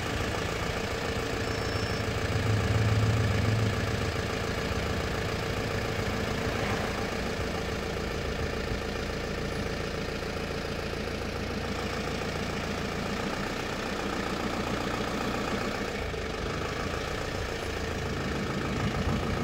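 An engine idling steadily, with a constant hum.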